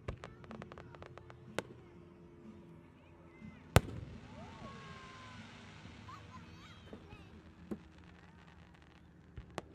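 Aerial fireworks bursting at a distance. A quick run of crackling pops comes in the first second and a half, then a loud boom about four seconds in is followed by a few seconds of hiss, and a few single pops come near the end.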